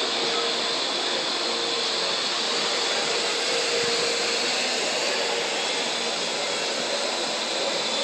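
Parrot AR.Drone quadcopter hovering, its four electric rotors giving a steady whir with a high whine.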